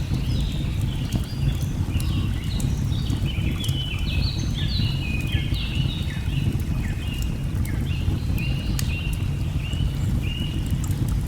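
Layered nature ambience: a steady low rush of falling water under many quick bird chirps and short whistles, thickest around the middle, with scattered sharp crackles of a log fire.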